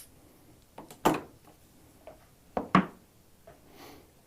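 A few hard knocks and clacks as tools and the hose assembly are handled and set down on a workbench, with two louder clacks about a second in and near three seconds in.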